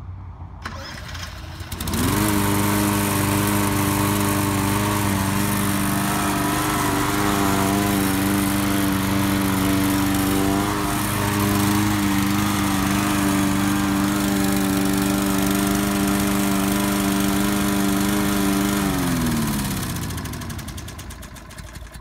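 Homemade remote-controlled lawn mower's small engine catching about two seconds in and running steadily, then shut off near the end, its pitch falling as it winds down.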